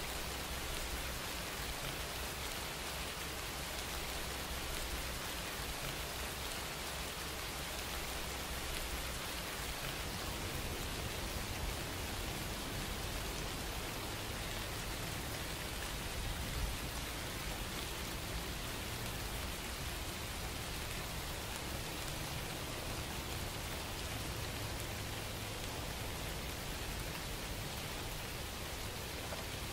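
Steady, even hiss with a low rumble underneath, unchanging throughout.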